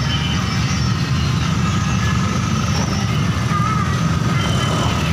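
Steady low rumble of street traffic, with faint higher sounds above it.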